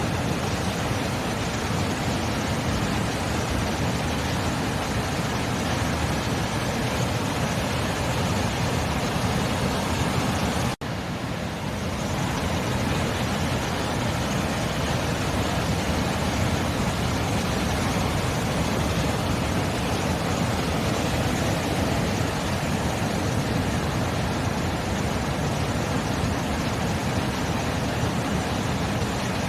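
Sea surf: a steady, continuous wash of waves breaking. It cuts out for an instant about eleven seconds in, then resumes.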